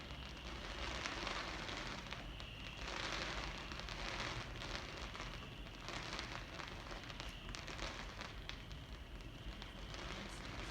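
Fireworks crackling: a dense, continuous sputter of many small pops that swells and fades in waves, with no single big bang.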